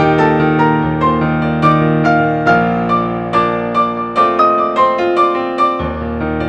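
Solo piano played on a digital piano: held bass notes that change every second or two under a melody of separately struck notes.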